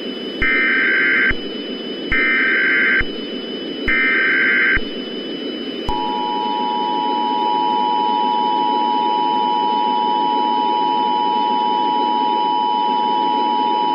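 Emergency Alert System broadcast alert: three short bursts of warbling data tones (the SAME header), then the two-tone attention signal sounding steadily for about eight seconds, over a steady radio hiss.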